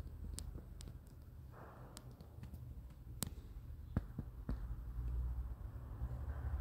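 Pen and hand working on a sheet of drawing paper: scattered light clicks and taps, with a brief soft scratch about one and a half seconds in, over a low rumble.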